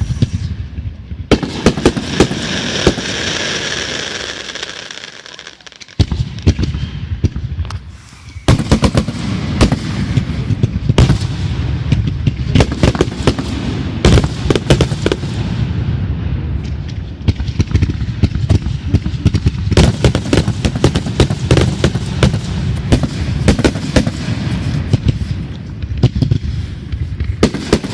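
Fireworks going off: a fizzing hiss for the first few seconds, a lull broken by a single bang about six seconds in, then from about eight and a half seconds a continuous rapid barrage of bangs and crackles.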